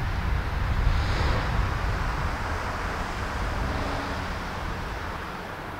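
Wind buffeting the microphone with a low rumble, under a broad rushing noise that swells about a second in and then slowly fades.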